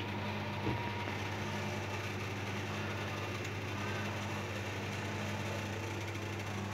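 Steady low electrical hum, with one light click under a second in.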